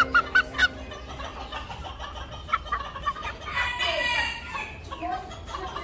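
Bantam rooster (Tân Châu game bantam) clucking: a quick run of short clucks in the first second, a few scattered ones after, and a longer drawn-out call a little past halfway.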